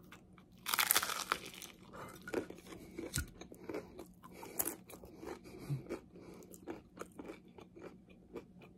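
A person biting into a lavash flatbread piled with pastrami, cheese and sautéed cabbage, with a loud crunch about a second in. Chewing follows, with small irregular crunches and mouth clicks.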